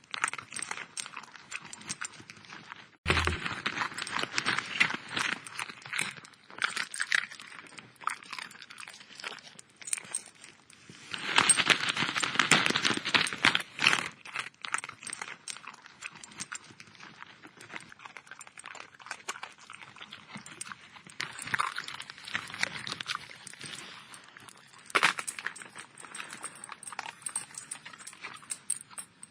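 A dog eating, its chewing and crunching coming as rapid runs of short clicks in spells, busiest about three to seven seconds in and again around twelve seconds, with one sharp click near twenty-five seconds.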